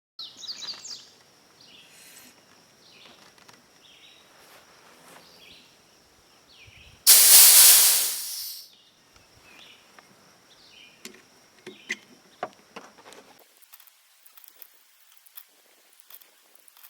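Outdoor ambience with a few high chirps near the start and a steady high thin tone. About seven seconds in comes a loud rushing hiss lasting a second and a half, and a series of small sharp clicks follows near the end.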